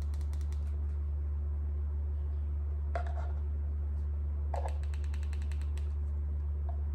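Clicks of a car key fob's buttons being pressed repeatedly in quick bursts, over a steady low electrical hum.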